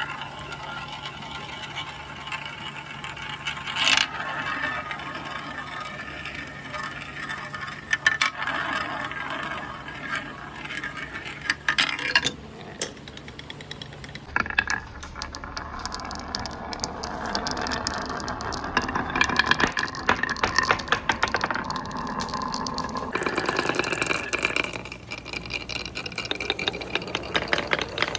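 Marbles rolling and clattering down the wooden slopes of a marble run: a continuous dense rattle with occasional sharper knocks as they drop and hit the track. The sound changes about halfway through, becoming denser and busier.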